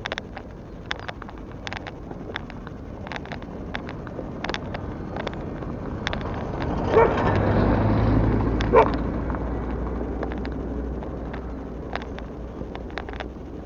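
A vehicle drives past, its engine noise swelling and fading about halfway through, with scattered clicks throughout. A dog gives two short barks as the vehicle passes.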